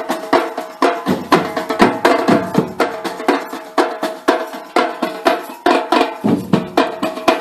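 Music with a steady, quick beat of drums and sharp percussion hits over sustained instrument tones.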